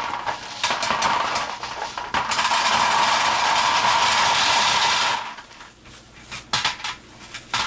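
Gumballs being poured into a gumball machine's globe: a dense, continuous clatter of many small balls striking each other and the container. It stops about five seconds in, leaving a few separate clicks.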